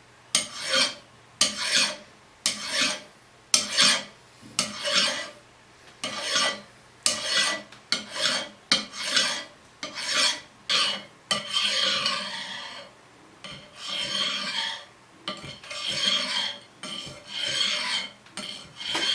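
Hand file rasping back and forth across a metal drill-press part, taking off burrs and dents. Roughly one stroke a second, with a few longer drawn-out strokes around the middle.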